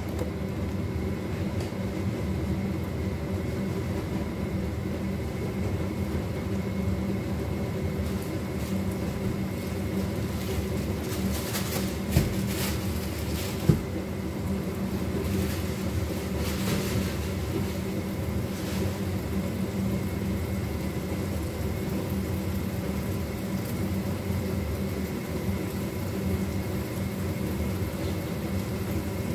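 Steady hum of a kitchen range-hood extractor fan running over the gas stove, with two short knocks about halfway through.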